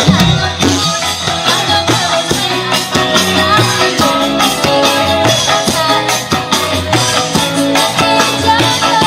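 Music with a steady beat, drums and tambourine over pitched instruments, with some singing.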